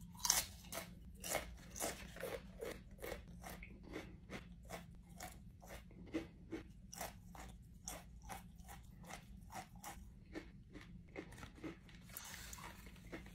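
Close-up chewing of the One Chip Challenge tortilla chip: steady crisp crunches, about three a second, fading a little as the chip is ground down.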